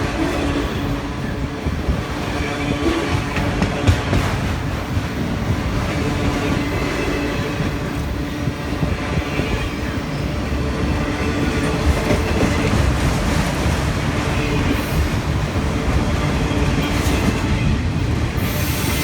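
Freight cars of a Union Pacific manifest train rolling steadily past, wheels clacking over the rail joints and squealing on the rails.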